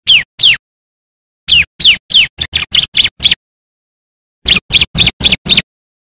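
Caged bar-winged prinia (ciblek) singing in bursts of sharp, steeply falling chirps. It gives two notes, then a run of about eight that quickens toward its end, then a fast burst of six near the end.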